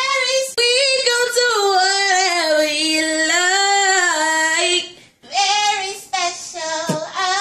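A girl singing unaccompanied in a high voice, holding long wavering notes, breaking off about five seconds in and then singing again.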